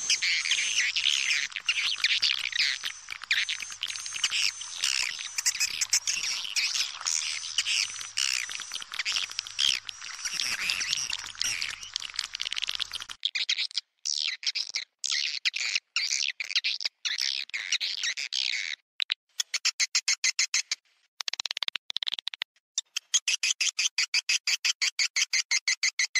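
A swiftlet lure-call track: a dense flock of edible-nest swiftlets twittering with high, overlapping chirps. About halfway through it cuts to a sparser stretch of chirps, which turns into a fast, regular run of clicks near the end.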